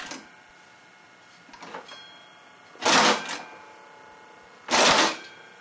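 Homemade two-stage compressed-air engine, converted from a two-stage air compressor, chuffing out air in separate puffs: a faint one, then two loud ones about two seconds apart, as it turns over slowly on the edge of stalling.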